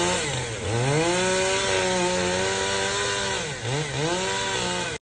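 An engine revved hard and held at high speed for about three seconds. It then drops, is blipped twice in quick succession and held high again, and it cuts off abruptly near the end.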